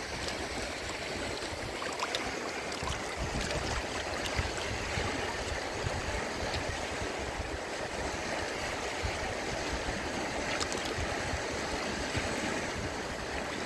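Fast river rushing over stones, a steady wash of water noise, with a few faint clicks.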